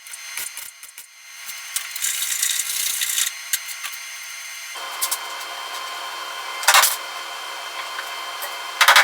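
Metalworking power tool in use on sheet-metal bodywork: some clicking, then a loud rush of noise. From about halfway through the tool runs steadily, with two short, loud harsh bursts.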